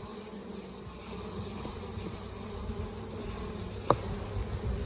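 Honeybees buzzing in a steady drone around an open hive, with one sharp click about four seconds in.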